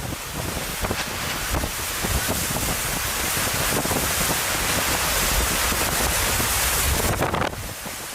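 Hurricane wind and rain, with gusts buffeting the microphone in a low, rumbling rush. The noise grows stronger after a couple of seconds and drops off suddenly near the end.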